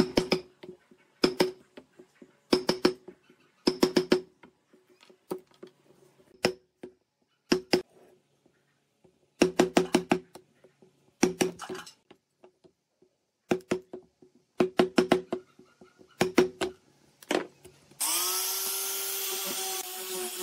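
A steel chisel struck in short bursts of sharp, ringing taps, about once a second, chopping out waste between saw kerfs in a pine board. About eighteen seconds in, an angle grinder fitted with a sanding drum spins up and runs steadily.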